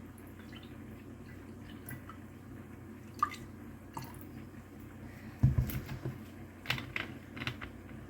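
Quiet kitchen handling sounds while making lemonade: a few light clicks and taps, a soft thump about five and a half seconds in, then more light clicks, over a low steady hum.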